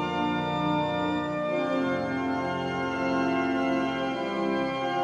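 Organ music: slow, sustained chords, changing about two seconds in and again near the end.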